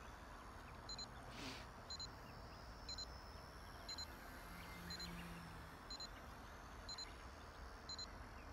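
Radio-control transmitter's flight timer beeping, short high double pips about once a second.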